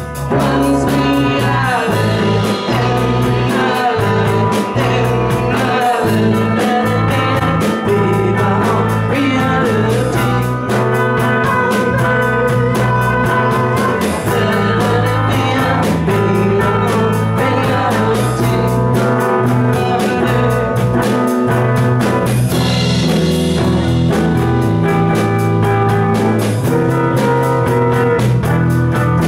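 Live rock band playing: singing over electric guitars and drums, loud and continuous.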